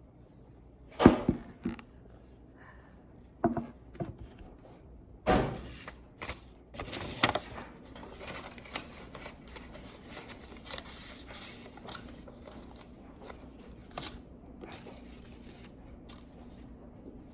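Packaging being handled: a few sharp knocks, then a long stretch of paper or plastic rustling with small clicks.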